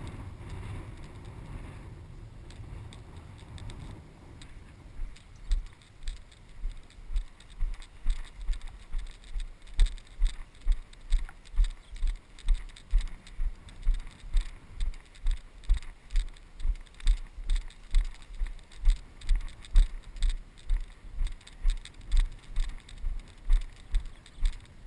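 A person's footsteps walking through knee-high wet pasture grass, heard from a body-worn camera: a low thud with each step, nearly two a second, with grass swishing and rustling. The steps start about five seconds in, after a few seconds of wind buffeting the microphone.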